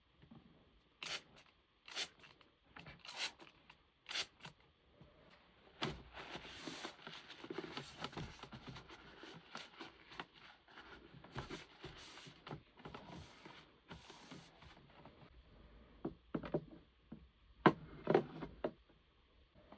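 Restocking a mini fridge: a few sharp taps and clicks, then several seconds of crinkling and scraping as packaged items are handled, then a cluster of louder knocks and clacks near the end as things are set down.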